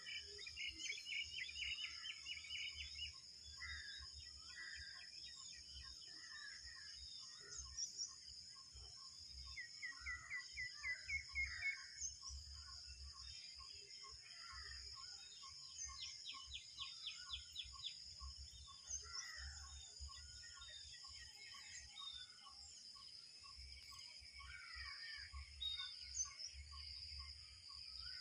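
Outdoor ambience with birds chirping: several quick trilled runs of high chirps and scattered calls, over a steady high-pitched drone, a faint regular ticking about twice a second and a low rumble on the microphone.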